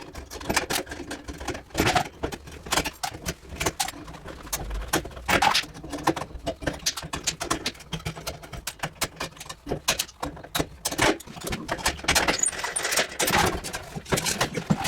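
Metal tools and parts being handled during dismantling, clinking and clattering in many sharp, irregular clicks and knocks.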